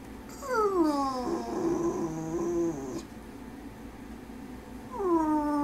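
Pit bull whining for food: a long call that slides down in pitch and then holds steady for about two seconds, then a second call of the same shape starting near the end.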